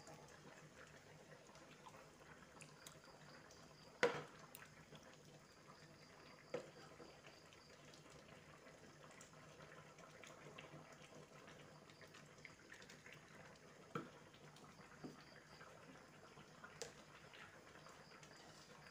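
Faint bubbling of a coconut-milk curry simmering in an aluminium pot, with a few soft knocks of a wooden spatula against the pot, the loudest about four seconds in.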